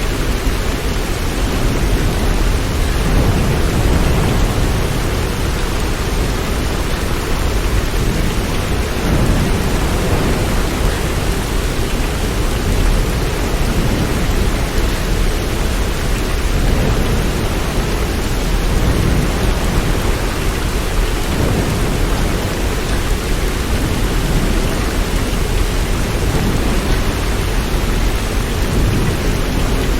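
Steady heavy rain: a dense, even hiss with a deep low rumble underneath, unchanging throughout.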